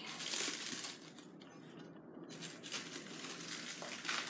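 Plastic shrink wrap crinkling and rustling as it is pulled off by hand, dropping quieter for about a second in the middle before the crinkling picks up again.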